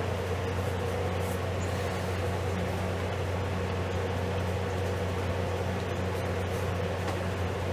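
Steady low electric hum with an even, airy whoosh over it: a fan motor running without letup.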